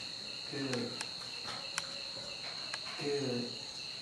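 Steady high-pitched insect chirring that pulses about three times a second, under two short low murmurs from a man's voice and a few light clicks.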